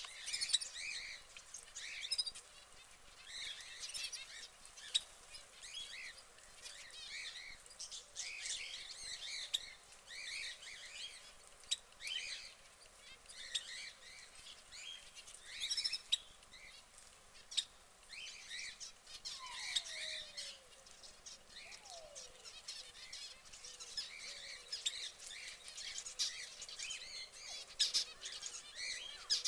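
Domestic canary chirping and calling in its cage: short high notes in quick clusters with brief pauses between them, with a few lower, falling whistled notes about two-thirds of the way through.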